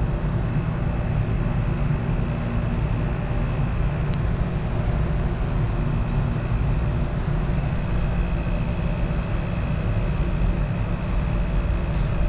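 Vacuum pump on a glass vacuum line running, a steady low hum with a faint high whine. A brief faint tick about four seconds in.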